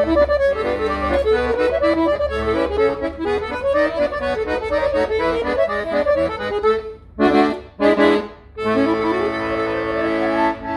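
Hohner Verdi II 80-bass piano accordion being played: a quick melody over bass-and-chord accompaniment. About seven seconds in it breaks into two short chords with gaps between them, then a long held chord with a rising run through it.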